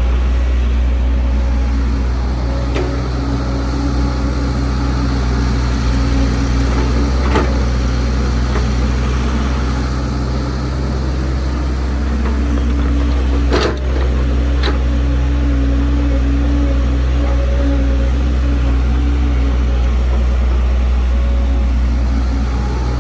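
Heavy diesel engine of an excavator or dump truck running steadily under close, loud low hum, with a few sharp knocks or clanks, the loudest about two-thirds of the way in.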